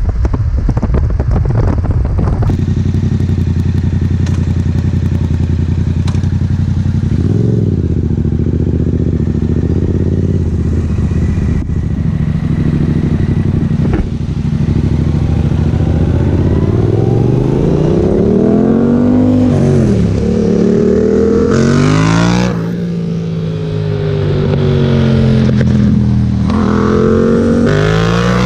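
Motorcycle engine running under way, its note climbing in several sweeps as it accelerates and dropping back at each gear change, mostly in the second half. Wind buffets the microphone for the first couple of seconds.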